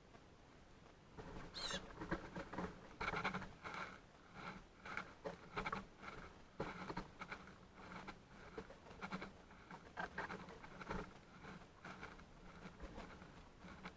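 Small birds pecking and scratching in seed at a feeder: an irregular patter of quick taps and rustles, with one brief high chirp about two seconds in.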